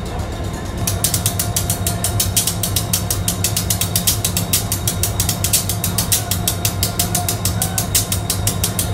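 EMD HGMU-30R diesel locomotive standing at idle with a low steady rumble; from about a second in, a rapid, even mechanical ticking runs over it.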